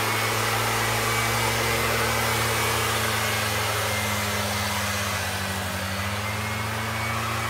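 STIHL backpack mist blower's two-stroke engine running steadily at high speed, with the hiss of its air blast as it throws a mist of spray. The engine note sags slightly just past halfway, then recovers.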